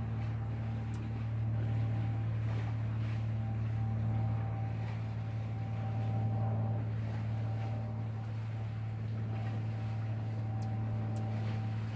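A steady low droning hum that holds one pitch throughout, with a fainter higher tone above it.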